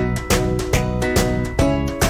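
Background music led by a strummed string instrument, with strokes falling on a steady beat about two a second.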